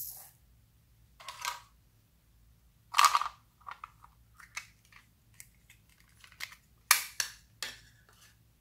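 Small plastic containers being handled and snapped open and shut: a scattered series of sharp plastic clicks and short rattles, the loudest snaps about three seconds in and again around seven seconds.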